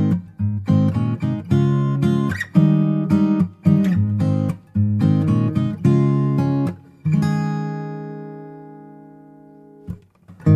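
Background music on acoustic guitar: chords strummed in short, choppy strokes, then one chord left to ring out and fade for about three seconds before the strumming starts again near the end.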